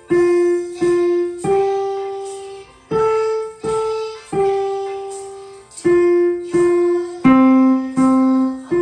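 Yamaha digital piano playing a simple beginner's melody one note at a time, in a short-short-long pattern with every third note held longer.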